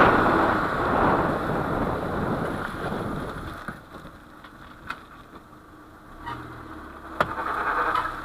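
Car noise: a loud rushing sound that dies down after about three seconds, leaving a low steady hum with a few sharp single knocks. The rushing rises again near the end.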